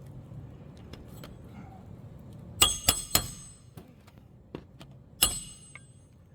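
Metal hand tool striking on a shingle roof: three quick clinks about two and a half seconds in, then one more about two seconds later, each with a short metallic ring.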